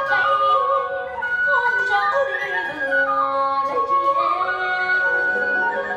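Live traditional Vietnamese ensemble music accompanying water puppetry: a melody of held notes with smooth slides between pitches over the ensemble.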